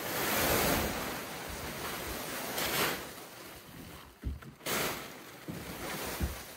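Plastic tarp rustling as it is dragged and bunched up by hand, in repeated loud swells of crinkling noise with a few dull knocks.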